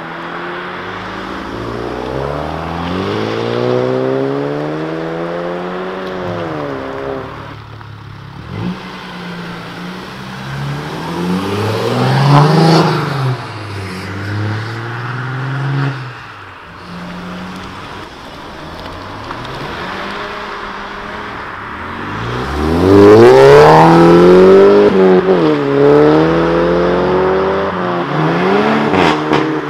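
Several performance cars accelerate hard away one after another. Each engine revs up, rising in pitch, and drops back at the gear changes, with the loudest run a little over two-thirds of the way in.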